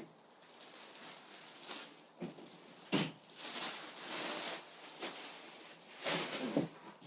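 Plastic wrapping being peeled and rustled off a table saw, in irregular bursts of crinkling with a sharp knock about three seconds in.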